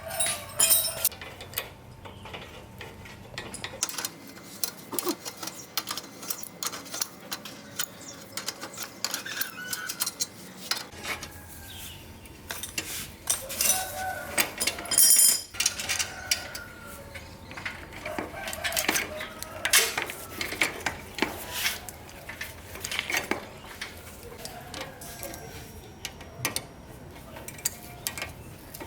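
Irregular metallic clinks and knocks of hand tools working on an old, rusty bicycle, with birds and chickens calling in the background.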